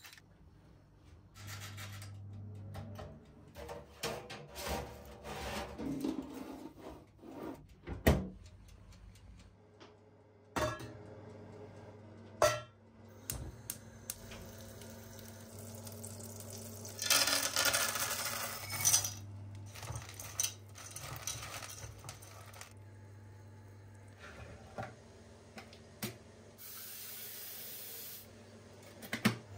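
Kitchen handling sounds: a pepper grinder turning, then metal pots and lids knocking and clinking, with a louder rush of noise for a couple of seconds in the middle. Near the end, tap water runs into an electric kettle. A low steady hum lies underneath.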